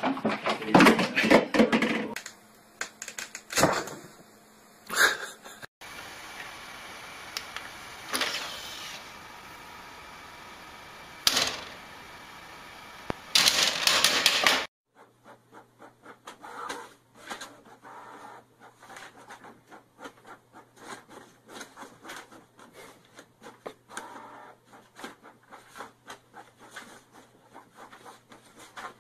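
A jumble of loud knocks and bumps, then a steady hiss with a few loud noisy spells. From about halfway, an inkjet all-in-one printer printing: a quick, uneven run of small ticks and clicks over a low steady hum as the sheet feeds out.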